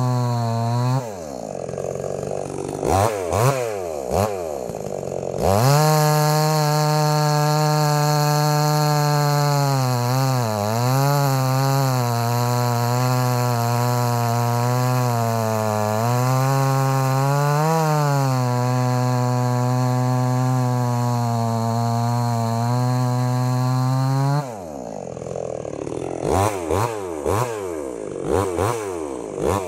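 Brand-new MTM 62 SX two-stroke chainsaw cutting a log at full throttle, its pitch dipping now and then as the chain loads up in the cut. About a second in it drops to idle with a few quick throttle blips, then runs at full throttle again for a long cut of about nineteen seconds. Near the end it falls back to idle with more blips.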